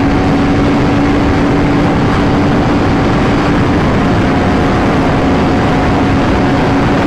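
Sport bike engine running steadily at high revs while cruising at highway speed, heard from the rider's position. A heavy rush of wind noise lies under the engine note.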